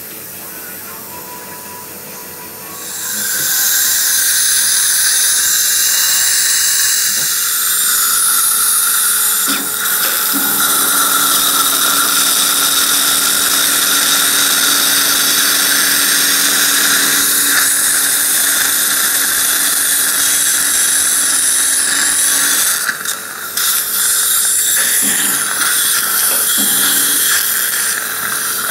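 Dental implant surgical drill in a contra-angle handpiece boring the implant site in the jaw bone: a steady high whine with hiss that comes up about three seconds in and briefly falters near the end.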